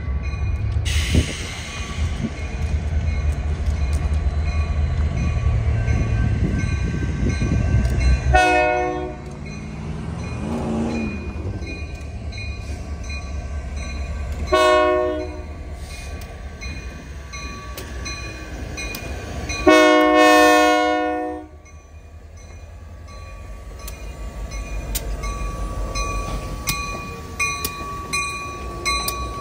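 Union Pacific diesel-electric locomotive approaching with its engine running, sounding its horn three times, about 8, 15 and 20 seconds in, the last blast longest and loudest. A string of sharp clicks comes as it draws alongside near the end.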